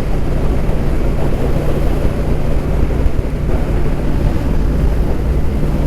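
Motorcycle engine running steadily at highway speed under heavy wind noise on the microphone.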